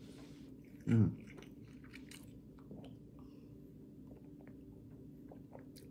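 A person chewing a donut, with small, quiet mouth clicks, and one short hum from the eater about a second in.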